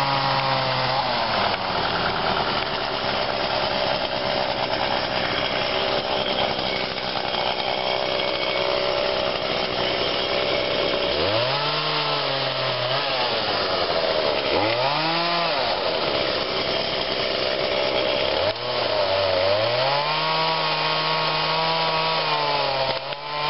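A two-stroke chainsaw cutting through the limbs of a storm-downed tree, its engine running under load. In the second half the engine revs up and drops back twice, then climbs again and holds at high revs near the end.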